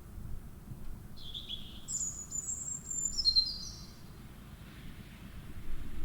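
Small bird chirping and whistling: a short high chirp about a second in, then a thin high whistle and a few quick stepped notes up to about four seconds in, over faint outdoor background noise.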